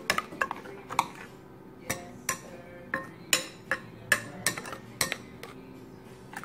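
Metal spoon stirring a liquid marinade in a ceramic dish, clinking and scraping against the bowl in many irregular taps.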